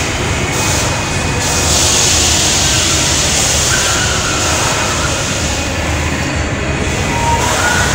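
Steady, loud mechanical rumble and din of amusement rides running inside an enclosed theme park dome.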